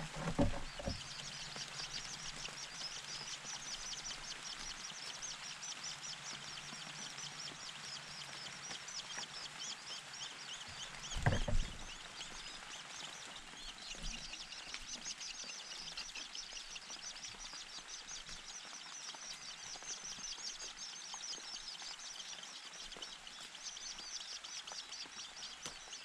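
Shrike nestlings begging with a fast, high, continuous chatter of calls that eases off briefly midway. A dull thump comes shortly after the start and again about 11 seconds in.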